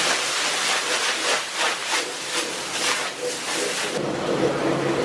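Water hissing and sizzling on a hot dosa griddle as it is scrubbed with a stick broom in quick, repeated strokes. About four seconds in, the hiss drops away and a duller, lower kitchen noise takes over.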